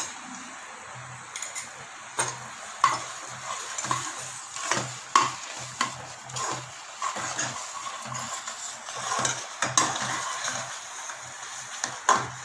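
Steel spoon stirring thick sweet pongal in an aluminium pressure cooker pot, with irregular scrapes and knocks against the pot over a steady hiss.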